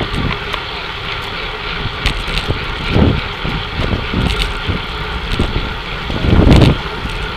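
Wind rumbling on a bike-mounted Replay XD1080 action camera's microphone while riding in a tight road-race peloton, over the steady rolling noise of the bicycles. Two stronger gusts come about three seconds in and again near the end.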